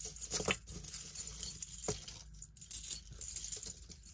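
Tangled jewelry chains and beads jingling and clinking while being handled and pulled apart, with scattered small clicks and a couple of sharper clinks about half a second and two seconds in.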